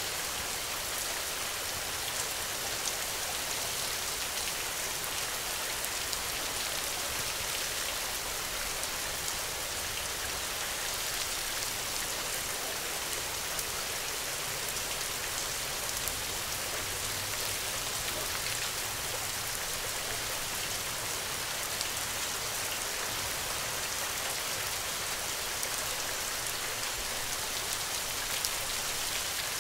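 Steady rain falling: an even, unbroken hiss with countless small drop impacts ticking through it.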